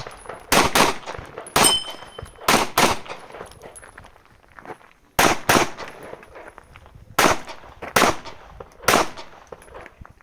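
Glock 17 9mm pistol fired rapidly, about ten shots in quick pairs and single shots. One shot is followed by a short metallic ring.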